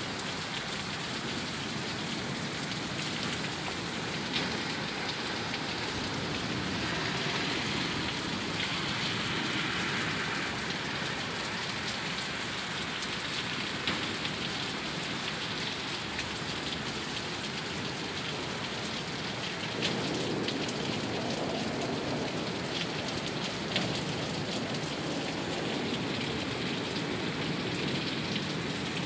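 Heavy thunderstorm downpour: rain falling hard and steadily, a dense hiss of drops on surfaces, with a few sharper single taps now and then and a slight swell in intensity about two-thirds of the way through.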